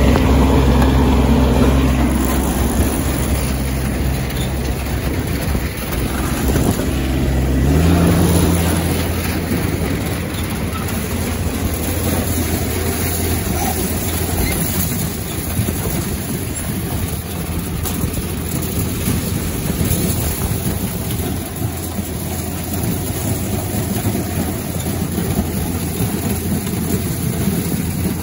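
Tractor engine running with a steady low note, revving up about seven seconds in. It then gives way to a steady clattering machine noise as ear corn tumbles from the wagon into the hopper of a running chain elevator.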